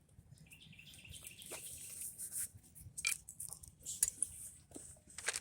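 Scattered light clicks and knocks of metal brake parts and tools being handled as a front brake caliper is refitted, a few sharp ones spread out over several seconds.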